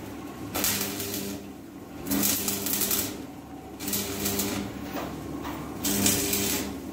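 Electric arc welding on steel cage bars: the arc crackles and sizzles in about four short bursts of roughly a second each, with a low electrical buzz under each burst.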